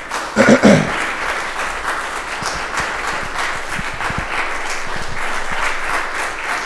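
Audience applauding steadily in a hall, with a brief voice just after the start.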